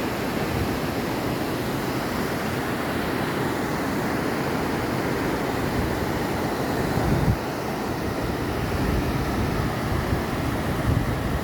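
The Yamuna river flowing fast, a steady, even rush of water noise. A brief low buffet of wind on the microphone comes about seven seconds in.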